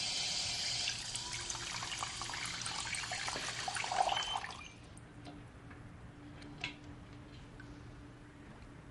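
Water running from a tap into a sink, shut off about four and a half seconds in; a faint low hum and a small click follow.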